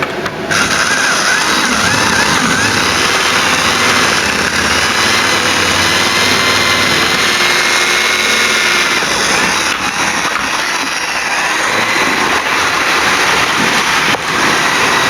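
Model railway locomotive running steadily around the layout: the motor and the wheels on the track make a continuous whirring rumble with a faint wavering whine.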